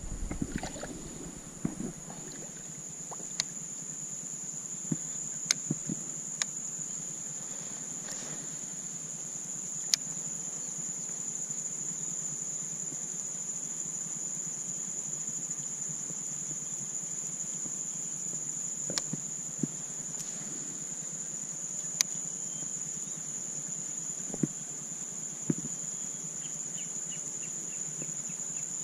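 Steady high-pitched drone of insects calling, one unbroken note, with a dozen or so sharp clicks and knocks scattered through it.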